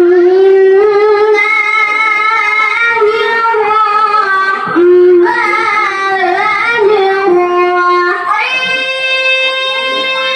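A boy's melodic Quran recitation (tilawah) into a handheld microphone: long held notes with ornamented wavering, a brief breath pause near the middle, then a step up to a higher, held note about eight seconds in.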